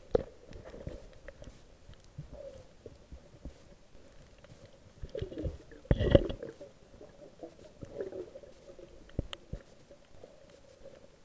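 Underwater sound picked up by a waterproof camera during a freedive in surging water: low rumbling with scattered small knocks, and a louder burst of knocking and rushing about five to six seconds in as the camera is jolted.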